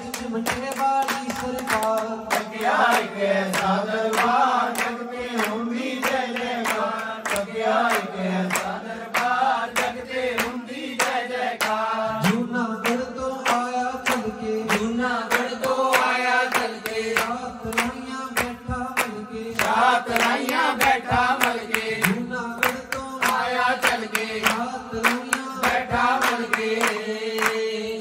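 A man leading a devotional bhajan into a microphone, with the group clapping along in a steady rhythm.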